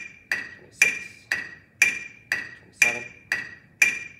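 Metronome clicking steadily at 120 beats per minute, two sharp clicks a second, with every other click a little louder.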